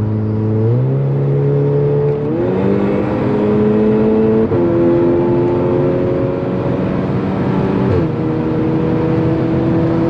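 Turbocharged car engine under hard acceleration. Its pitch jumps up twice in the first few seconds as gears are dropped, climbs steadily, then falls at about eight seconds with a shift up.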